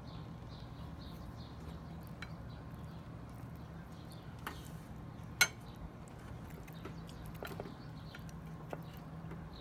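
A few sharp clicks or clinks over a steady low hum, with one much louder click about halfway through. A faint chirping repeats about three times a second in the first second or so.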